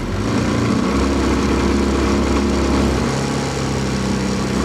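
15 hp four-stroke outboard motor opened up past mid-throttle, its note shifting unevenly as it misfires at high revs once warmed up; the cause is unknown to the owner.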